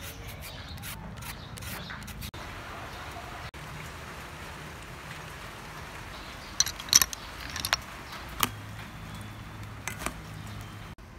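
Kitchen food-preparation sounds over a steady background hum. First come quick scratchy strokes of a green mango being shredded on a grater. A little past the middle, a few loud sharp clicks of hard sea snail shells knocking together, then single clicks as salad is stirred in a steel bowl.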